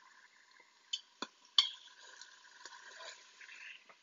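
A utensil knocks three quick times against the Instant Pot's inner pot while chicken pieces are being turned during browning. Faint sizzling of the browning chicken follows.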